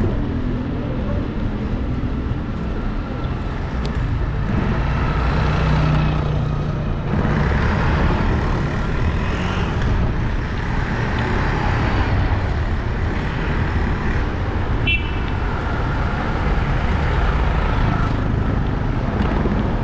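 Street traffic noise, with cars passing on the road and a steady low rumble of wind on the microphone.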